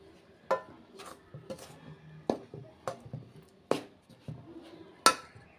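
Spoon stirring dry flour in a steel bowl, scraping and clinking against the bowl about seven times, the loudest stroke near the end.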